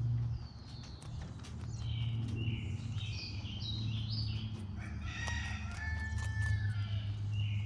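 Chickens calling: a run of pitched squawks and clucks that starts about a second and a half in. Close by, a rabbit's chewing makes short clicks as it eats weeds, all over a low steady hum.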